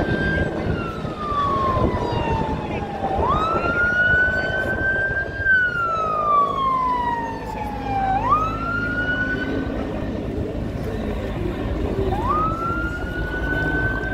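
Emergency-vehicle siren in wail mode on a moving car: each cycle jumps up sharply and then falls slowly over about three seconds, three cycles in all, over a low steady rumble of engines.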